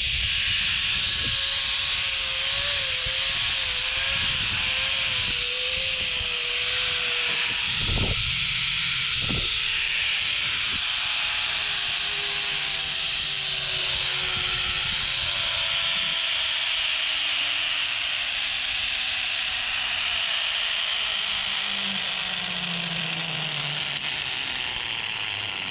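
Zipline trolley's pulley wheels running along a steel cable: a whine that wavers at first, then falls slowly in pitch as the trolley slows, over a steady hiss. Two sharp knocks come about eight and nine seconds in.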